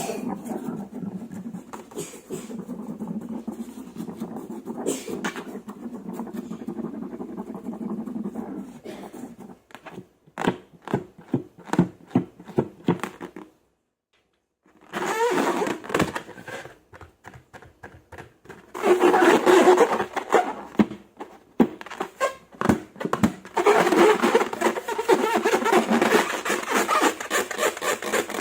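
Slime being squeezed and worked by hand, giving sticky clicks, pops and dense crackling squishes. A steady rustling comes first, and there is a brief gap of silence about halfway.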